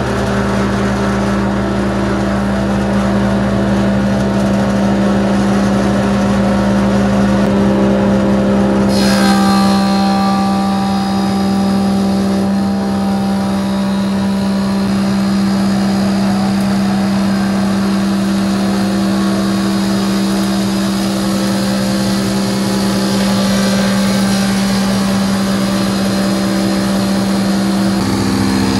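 WoodMaster 25-inch molder/planer running steadily while it feeds and planes a wide live-edge oak slab: a loud, even machine hum with the cutting noise on top. The sound shifts about nine seconds in.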